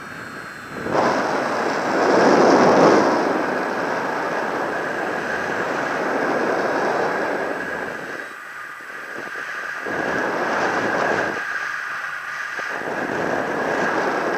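Wind rushing over the camera microphone of a paraglider in flight, rising and falling in gusts: loudest about two seconds in, dropping away briefly twice in the second half.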